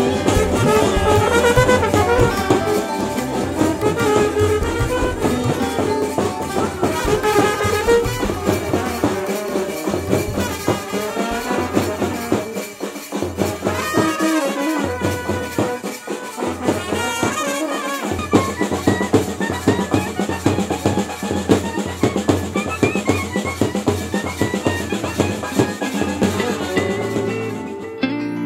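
Background music: a melody over a fast, steady percussion beat, changing to a different piece near the end.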